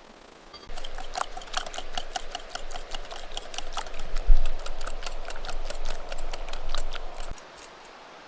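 A rapid run of sharp mechanical clicks, about six a second, with a faint steady whirr under them, like a small ratcheting mechanism being worked. It starts about a second in, runs for about six and a half seconds and stops abruptly.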